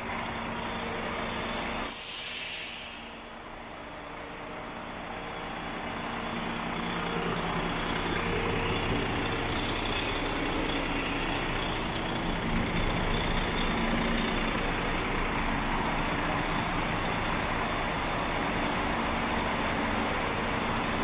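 Volvo FH12 truck's D12 diesel engine idling steadily. About two seconds in there is a short, sharp hiss of compressed air released from the air-brake system, and a fainter hiss comes near the middle.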